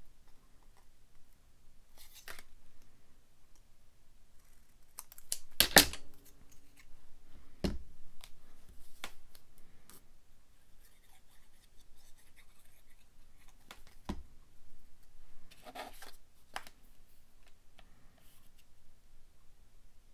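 Scissors snipping through a paper strip, a few separate cuts with pauses between them, followed by scattered soft clicks and rustles of paper being handled.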